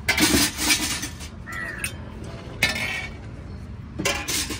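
Stainless steel dishes and serving vessels clattering and clinking at a food stall, in a burst near the start and again twice later. A crow caws once in between.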